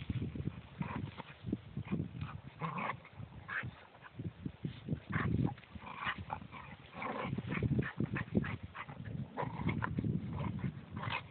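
Two dogs play-fighting, making short, irregular vocal noises over and over.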